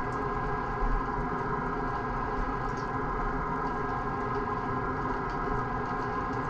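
A steady machine hum holding several fixed tones, with a soft low thump about a second in.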